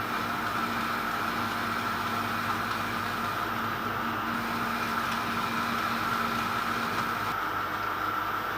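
A metal lathe running steadily, its tool turning a brass piston blank and taking off curly swarf, with a steady motor hum.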